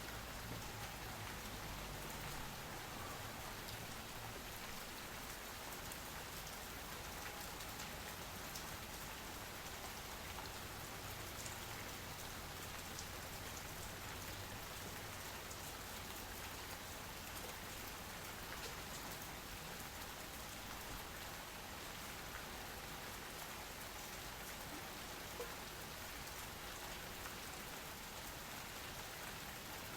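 Steady rain falling on hard surfaces: an even hiss with scattered individual drop ticks.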